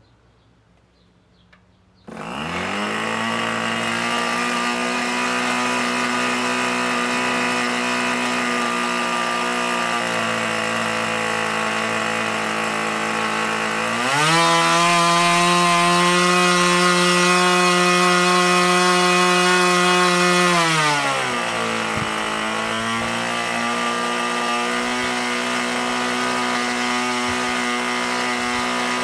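1964 O.S. Max-S 30 R/C model glow engine with an OS-703 muffler, swinging a 10x5 propeller. It starts about two seconds in and runs steadily. About halfway it is opened up to a higher, louder note for about seven seconds, then throttled back to the steady lower speed.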